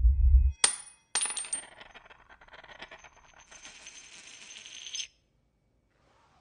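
A bullet drops onto a tile floor with a sharp metallic clink, then hits again with a few quick bounces. It rattles and spins on the tile for several seconds before stopping suddenly. A low rumble cuts off just before the first clink.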